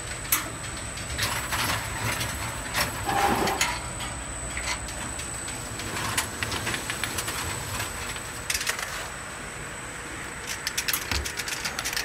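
Automatic bottle washing machine handling amber glass vials, running with a steady low hum and a thin high whine. Its grippers and carriers make scattered clicks, knocks and glassy clinks, with a quick flurry of clicks near the end.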